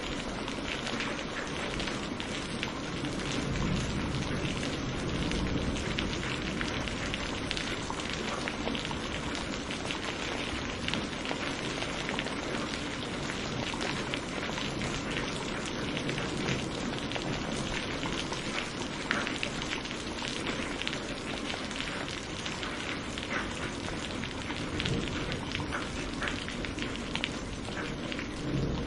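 Steady rain falling on a surface, a constant hiss dotted with many small drop ticks.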